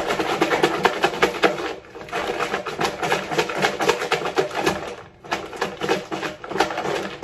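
Salad being shaken inside a lidded clear plastic bowl: lettuce and ground turkey rattle and knock against the plastic in rapid strokes. The shaking comes in three bouts, with brief pauses about two seconds in and again about five seconds in.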